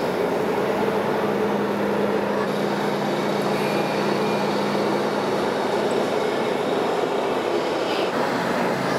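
Steady din of a busy exhibition hall, with a low hum running under it that fades out partway through and returns near the end.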